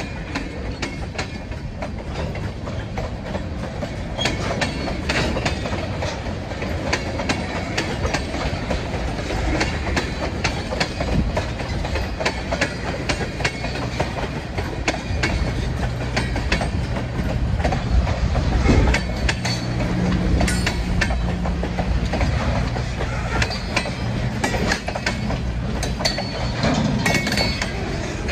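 Freight train cars rolling past close by: a steady rumble of steel wheels on the rails, with many clicks and clanks as the wheels cross the rail joints.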